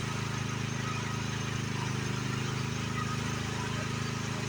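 Engine of a small demolition machine running steadily, a low, even hum that starts abruptly.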